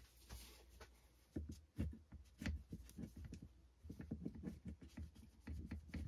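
Irregular soft clicks and taps of small plastic parts and wire connectors being handled on a workbench, with a brief rustle of a cloth near the start.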